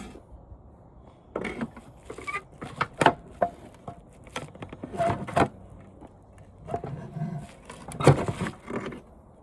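Irregular knocks, clunks and scrapes of hands handling and prying at the parts of an old TV set being taken apart, with sharper knocks about three seconds in and near the end.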